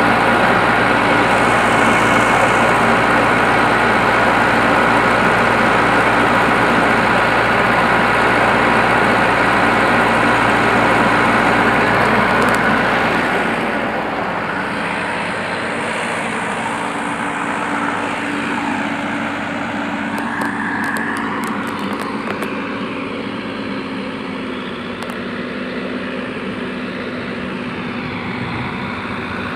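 Excavator's diesel engine running steadily, then settling to a lower, quieter run about 13 seconds in.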